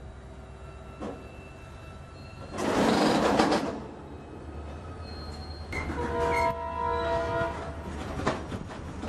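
Freight train wagons rolling past, with wheels clicking over a low steady rumble. About three seconds in there is a loud rush of noise for about a second. About six seconds in a train horn sounds, held steady for a second and a half.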